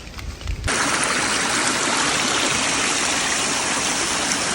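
Small stream, the shelter's water source, running steadily close to the microphone; the water sound begins abruptly less than a second in.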